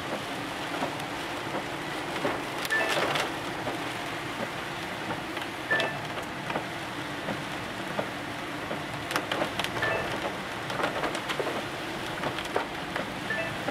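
Rain pattering and ticking on a car's roof and windshield, heard from inside the cabin, over a low steady hum of the slowly moving car. A short chirp recurs every three or four seconds.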